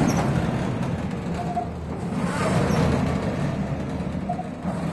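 Biorower S1 Club rowing ergometer being rowed, its mechanism whirring continuously and swelling with each stroke, about one stroke every two to two and a half seconds.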